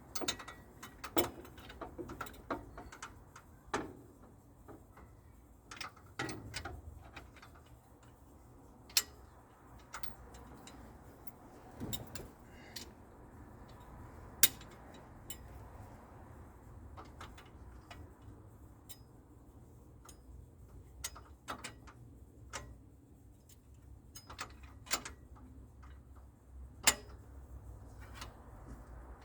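Ratchet and hand tools clicking and clinking in scattered, irregular sharp clicks as cylinder head bolts are worked loose.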